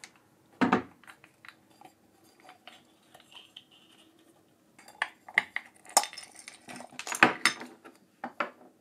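Clinks, clicks and knocks of a lava lamp base being taken apart by hand on a wooden table, with pliers being set down. One loud knock comes about a second in; a busier run of metallic clinks and knocks follows in the last few seconds as the parts come loose and are laid out.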